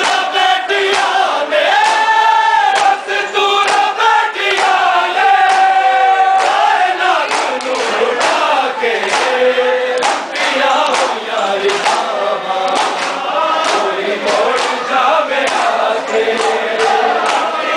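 A large crowd of men chanting a mourning lament together in long, gliding notes, with sharp slaps of hands beating on bare chests (matam) repeating in rhythm.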